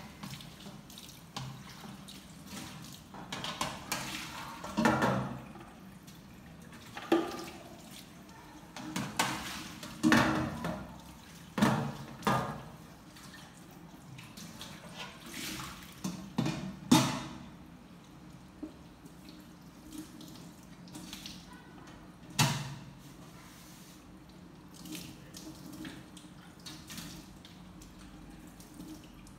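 Washing up by hand in a metal basin: water sloshing and splashing, with dishes and pans knocking and clattering against each other at irregular moments, busiest in the first half.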